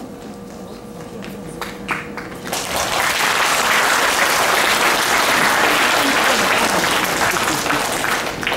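Audience applauding at the end of a stage dance performance. It starts with a few scattered claps about two seconds in, swells into steady applause, and eases off slightly near the end.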